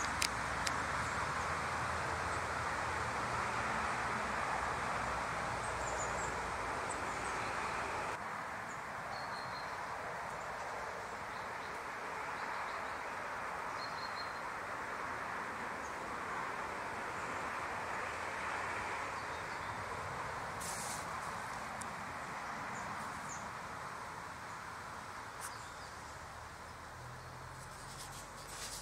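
Steady outdoor background hiss with a few faint, short, high-pitched bird chirps. The hiss drops abruptly about eight seconds in.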